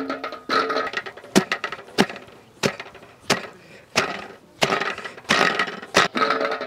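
Cooked chicken being pounded in a large steel pot with a long wooden pestle: a steady run of dull thuds, about one every two-thirds of a second, mashing the meat loose from the bones.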